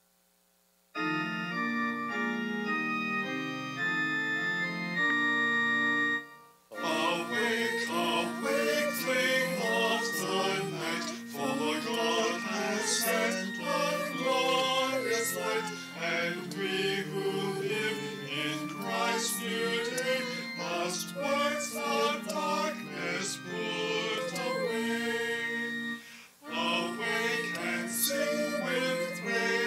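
Organ plays steady held chords, and after a few seconds voices begin singing a hymn over the organ accompaniment, with a brief break between phrases near the end.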